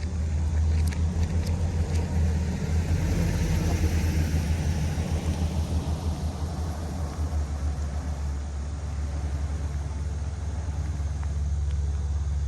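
Motor vehicle running, a steady low rumble of engine and road noise that flutters unevenly through the middle.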